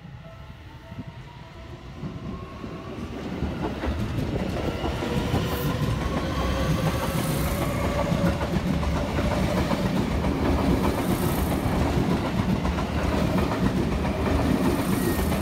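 Seibu 6000 series electric train approaching and passing close by. A motor whine rises in pitch over the first several seconds while the rumble grows louder, then comes a steady heavy wheel-and-rail rumble with clacks of wheels over the rails as the cars go past.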